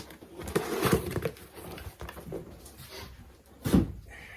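Handling noise as motorcycle parts are moved: rustling and light clatter, then a single heavy thump a little before the end.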